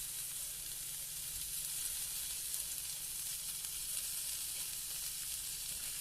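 Scallops searing in butter in a hot pan, sizzling steadily.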